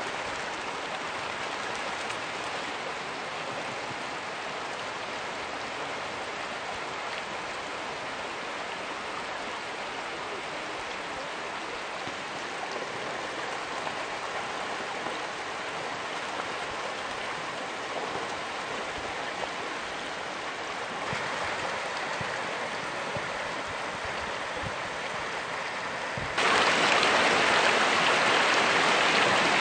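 Floodwater running across a road, a steady rushing wash of water that turns suddenly louder near the end.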